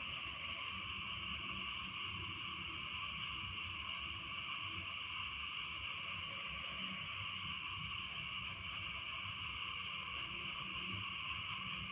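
Dense, steady night chorus of frogs and insects calling after rain, with scattered short high chirps over it.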